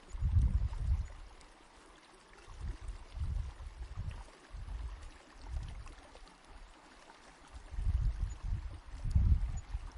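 Running water in a steady hiss, with uneven deep surges that swell and fade every second or two.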